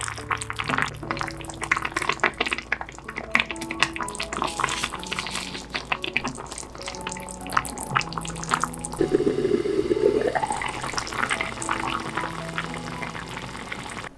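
Water running from a kitchen tap and splashing in a sink, over light background music. About nine seconds in, a tone rises in pitch for a second or so.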